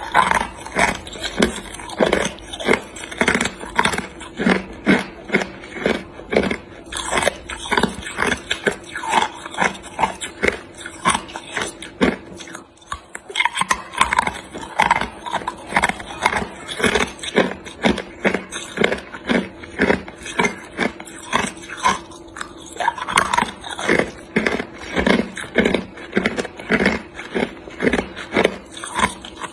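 Hard clear ice cubes being bitten and crunched between the teeth: a rapid, continuous run of sharp cracks and crunches, with a short pause a little before the middle.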